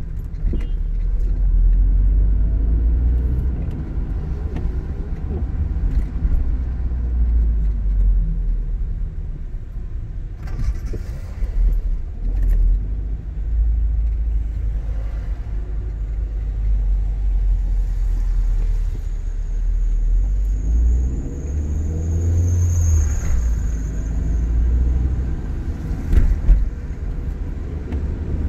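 Car driving, heard from inside the cabin: a steady low rumble of engine and tyres, with a few brief knocks.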